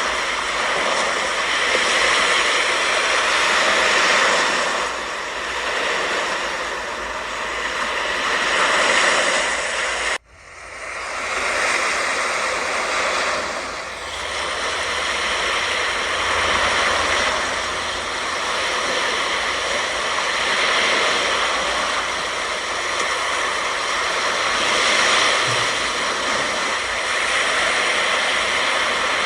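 Ocean surf breaking on a beach: a steady wash of noise that swells and eases every few seconds. It cuts out abruptly for an instant about ten seconds in, then returns.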